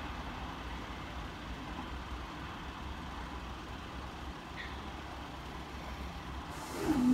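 Steady low rumble of road vehicles idling while waiting at the closed level crossing. Near the end the barrier machinery starts up, a louder hum that dips in pitch and then holds steady as the barriers begin to lift.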